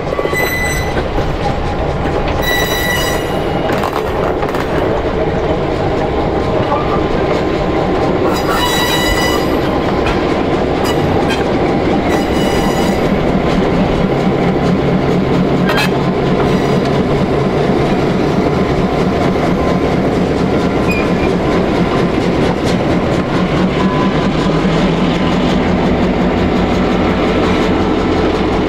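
A slow diesel-hauled train of a passenger coach and locomotives, including an EMD F3A, rolling past close by, its wheels rumbling on the rails. Steel wheel flanges give two short high squeals in the first ten seconds. A diesel engine's steady low throb grows in from about halfway through as the F3A goes by.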